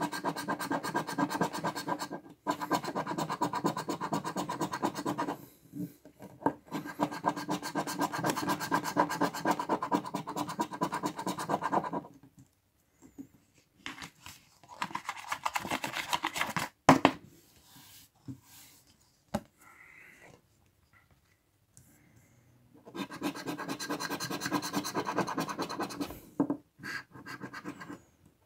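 A metal coin scraping the silver coating off a paper scratch-card ticket in quick back-and-forth strokes, in long runs. The scraping stops for about ten seconds in the middle, leaving only a few light taps and one sharp click, then starts again.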